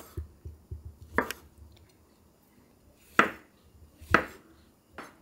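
Kitchen knife slicing button mushrooms thinly on a wooden cutting board: about five separate cuts, each ending in a sharp knock of the blade on the board, at uneven intervals.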